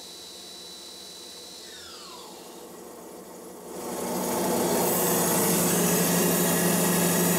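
Tormach PCNC 1100 CNC mill running: at first a steady machine sound with a thin high whine that falls in pitch about two seconds in. Near the middle it gets much louder as the two-flute carbide endmill cuts the aluminum plate in a high-speed pass, throwing chips.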